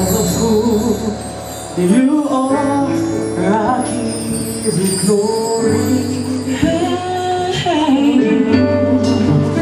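Women singing a song into microphones, accompanied by a live band with electric guitar and keyboard and a steady bass line.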